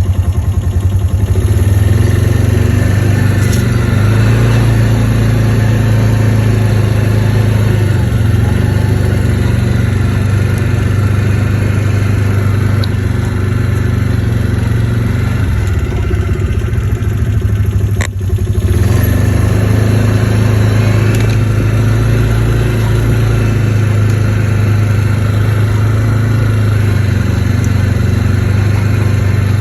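ATV engine running steadily while riding. It eases off briefly about two-thirds of the way through, with a sharp click, then picks up again.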